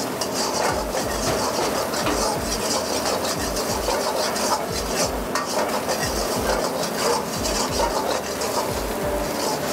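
Steel wok ladle scraping and clinking against an iron wok as chopped onion, garlic and ginger are stirred and fried in hot oil, over a steady sizzle.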